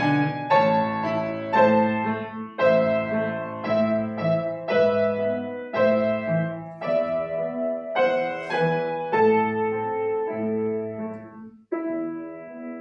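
Solo piano playing a classical piece in a slow run of full chords, about one a second, with a short break near the end.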